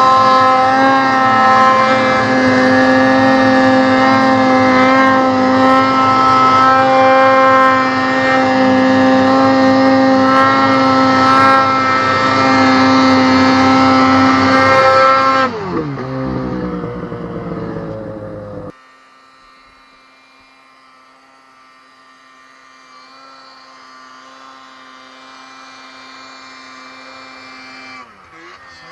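Snowmobile engine running hard at a high, steady pitch through deep powder. About 15 seconds in the revs fall away, and a few seconds later the sound drops suddenly to a faint, steady engine hum.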